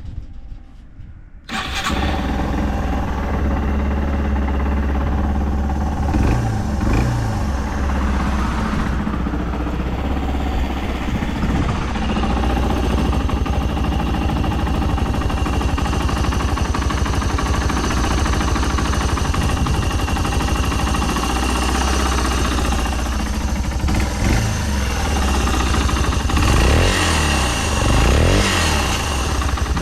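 Yamaha Serow 225's air-cooled single-cylinder four-stroke engine, breathing through a Delta Barrel 4 up-muffler, starts about a second and a half in and settles into a steady idle. Brief throttle blips come around six seconds in and several more near the end; it runs without abnormal noise.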